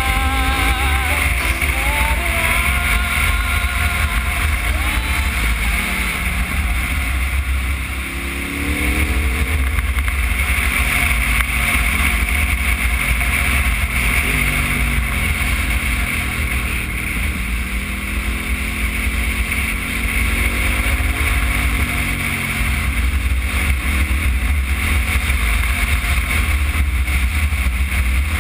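KTM 990 Adventure's V-twin engine running at road speed, its pitch rising and falling several times with the throttle through the curves, over a heavy low wind rumble on the microphone.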